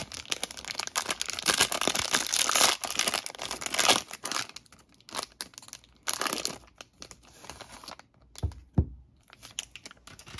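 Glossy plastic wrapper of a trading-card value pack being torn open and crinkled, busiest in the first four seconds, then a few shorter crinkles. Two dull thumps come near the end, followed by light scattered clicks.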